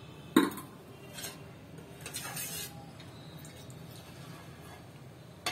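Metal cookware being handled: a sharp clink of steel or aluminium about half a second in, a fainter knock near a second and a half, and a short scraping rustle around two seconds, over a faint low hum.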